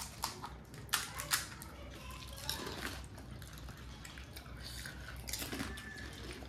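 Crisp pani puri shells being cracked open with the fingers and dipped into small bowls of pani: scattered faint cracks and clicks, a few sharper ones in the first second and a half, with light liquid sounds.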